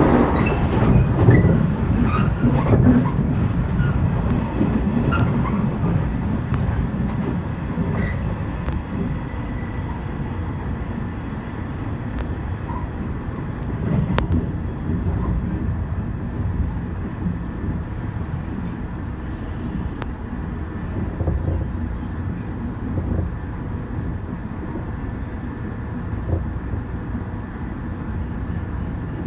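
415 series electric train running along the line: a steady rumble of wheels on rail and running gear, a little louder in the first few seconds.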